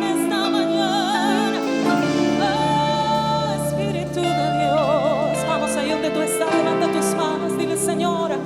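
Worship band music: a singer holding long notes with vibrato over sustained low chords, the chord changing about two seconds in and again past six seconds.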